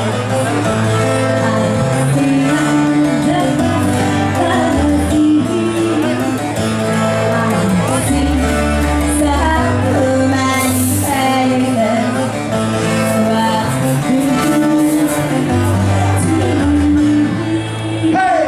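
A live band playing a song, with singing over bass and guitar.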